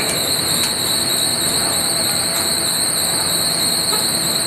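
Skewered kebab meat sizzling over a charcoal grill: a dense, steady hiss with a constant high-pitched whine over it.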